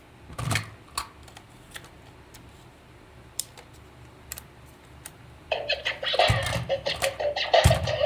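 Scattered light clicks and taps of a plastic toy being handled. From about halfway, a fast, dense clattering rattle sets in for a couple of seconds, with two dull thumps.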